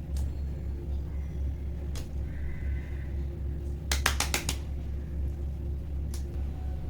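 Fidget toys being handled: a few lone sharp clicks, then a quick run of about five pops roughly four seconds in, over a steady low hum.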